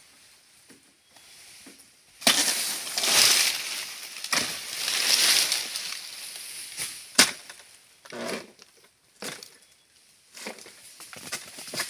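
Oil palm fronds being cut with a long-pole harvesting sickle: long swells of dry leafy rustling and crashing as the fronds scrape down through the crown, a sharp snap about seven seconds in, then shorter rustles.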